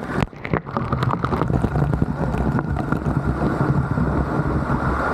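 Waterfall pouring: a steady rushing water noise, with wind buffeting the microphone. A few brief knocks come in the first second or so.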